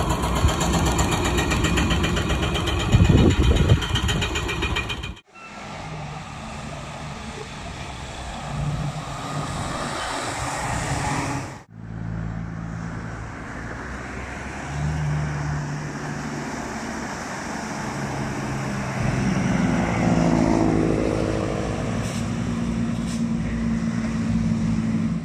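Heavy diesel dump trucks driving by on the road, their engines and tyre noise loud and close. The sound breaks off abruptly twice as the clips change, and in the last clip a truck's engine note rises as it pulls away.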